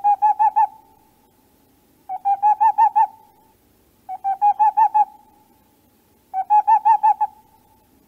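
An owl calling in short runs of rapid hoots, about seven notes a second. Each run lasts about a second, grows louder as it goes, and repeats about every two seconds.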